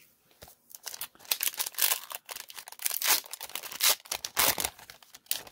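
Foil wrapper of a baseball card pack crinkling and tearing as it is opened by hand: a dense, irregular run of crackles.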